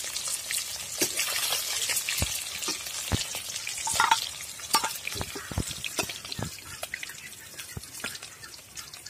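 Climbing perch frying in mustard oil in an iron kadai: a steady hiss of sizzling oil that thins toward the end. Scattered sharp clicks and scrapes of a metal spatula against the pan come through as the fish are turned and lifted out.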